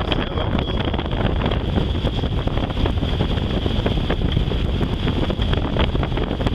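Wind buffeting the microphone on a sailboat underway in choppy water: a steady, rough low rushing noise.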